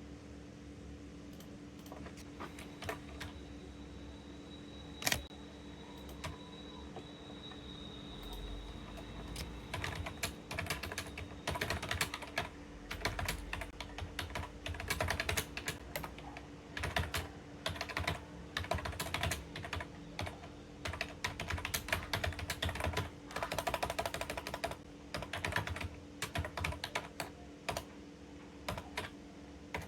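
Computer keyboard typing during a typing test at about 43 words per minute. Scattered single key clicks for the first ten seconds, then fast, continuous clattering in bursts with short pauses, over a steady low hum.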